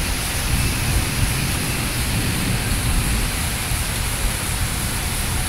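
Rain falling steadily on trees and leaves: a dense, even hiss.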